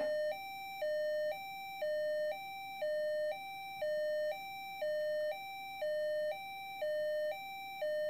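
Implanted Medtronic defibrillator sounding its audible alert from inside the chest: a steady electronic beeping that alternates between a higher and a lower tone, each lasting about half a second. It is a low-level alert, which the owner says only needs the device's settings changed.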